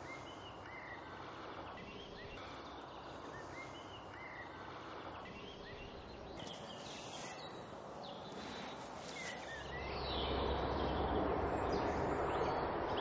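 Outdoor ambience with small birds calling: short chirps repeated every second or so, with a few higher calls in the middle, over a steady background hiss. About ten seconds in, a louder rushing noise with a low rumble sets in.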